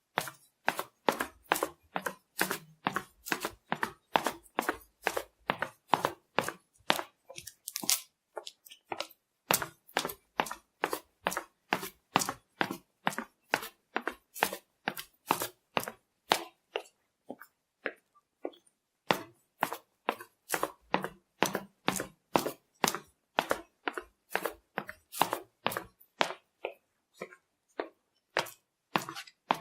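Footsteps: a steady, quick rhythm of sharp steps, breaking off briefly about 9 seconds in and again about 18 seconds in.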